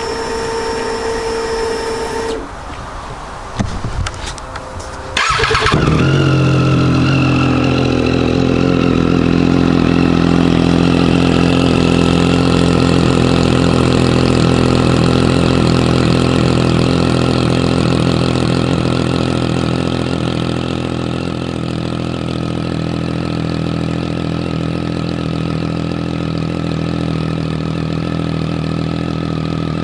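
2014 Triumph Street Triple R's three-cylinder engine with an Austin Racing GP2R exhaust being started. A steady whine sounds for the first two seconds, then the starter turns it over and the engine catches with a loud burst about five seconds in. It settles into a steady idle that eases slightly about twenty seconds in.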